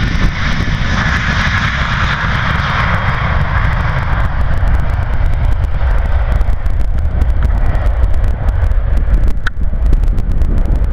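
Airbus A320-family jet airliner's engines at takeoff power on its takeoff roll, its jet roar loudest as it passes and fading over the first few seconds as it moves away. Heavy wind buffeting on the microphone rumbles under it throughout, with one short click near the end.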